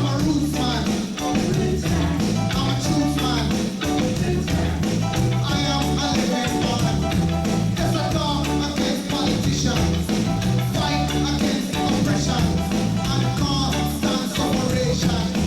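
Live reggae band playing an instrumental passage, with a steady bass line, guitar and percussion.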